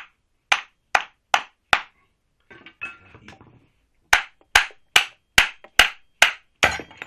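Hammer blows on an old washing-machine motor's aluminium housing, beating at it to get it apart: five sharp blows at about two and a half a second, a short pause with some clattering, then eight more at the same pace.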